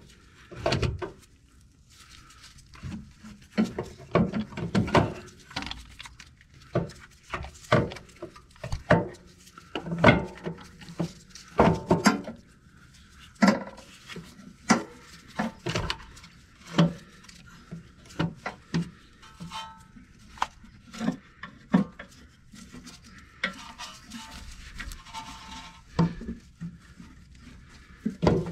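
Irregular metal clunks, knocks and scrapes as a loosened car starter motor is wrestled by hand through the truck's underside toward the wheel-well opening.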